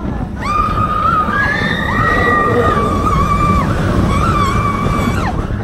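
Riders on a theme-park ride whooping in long held high notes, two voices at once, breaking and starting again and ending in a falling glide, over the ride's steady low rumble.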